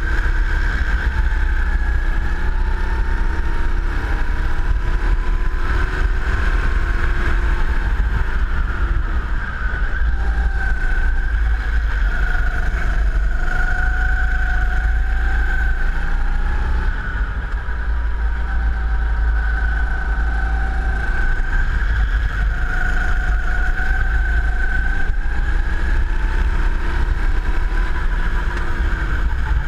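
Go-kart engine running flat out, its pitch rising and falling as the kart speeds up and slows through the laps, under a heavy low rumble of wind on the onboard microphone.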